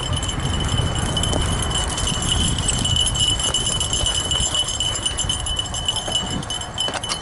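Fat bike rolling along a dirt trail under dog power, a steady low rumble of its wide tyres on the ground, with a steady high-pitched ringing over it.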